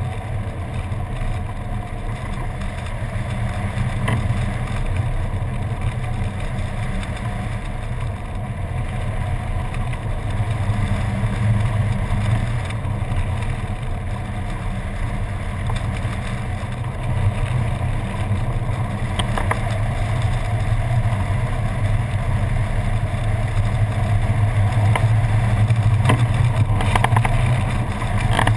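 Steady low rumble of wind buffeting the camera's microphone during unpowered hang glider flight, growing somewhat louder near the end as the glider descends toward the field.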